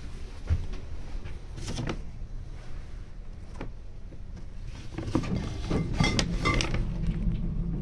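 Paper grocery bags rustling and glass bottles and jars knocking together as a box of groceries is handled, with scattered short clicks and crinkles that get busier near the end. Underneath runs the low steady rumble of a moving elevator cab.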